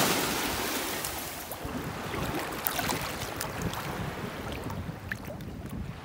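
Gentle waves washing up over the sand at the water's edge, with wind buffeting the microphone.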